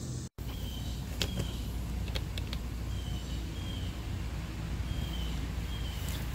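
Outdoor ambience: a bird giving short, slightly falling chirps about once a second over a low steady rumble, with a few faint clicks. The sound drops out for a moment just after the start.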